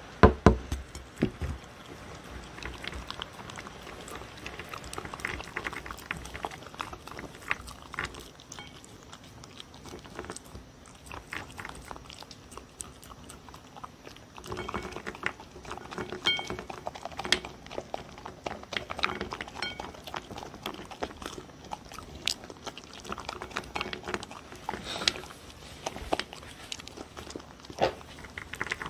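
A dog eating close to the microphone: irregular crunching and chewing of beef kibble mixed with sweet potato and red bell pepper, its mouth working at the plate. A few loud knocks come in the first second or so.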